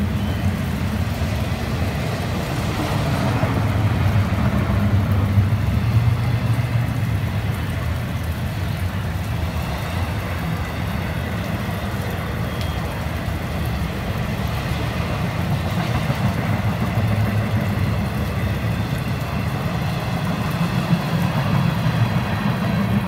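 Freight cars of an intermodal train rolling past, a steady rumble of steel wheels on rail that swells slightly a few seconds in.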